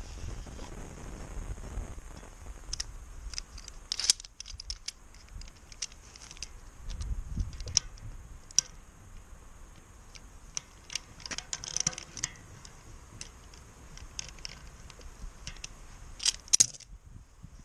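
Metal tools clicking and clinking against a road-bike cassette as a lockring remover is seated in the lockring and a 24 mm spanner is fitted onto it, with a chain whip holding the sprockets. The clicks come irregularly, the sharpest about four, eight and sixteen seconds in.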